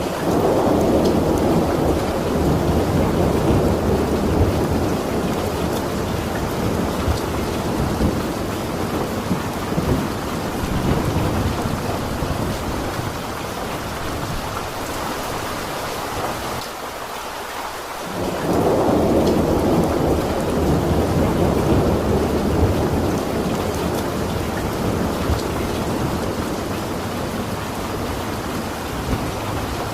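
Steady rain with rolling thunder: a long low rumble swells up at the start and slowly fades, then, after a short lull, a second long rumble rolls in about two-thirds of the way through.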